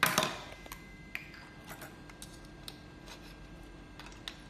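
A sharp crinkling rustle as the thin metal-foil heat-shield wrap round an egg is handled on paper towel, fading within about half a second, followed by scattered light clicks and ticks.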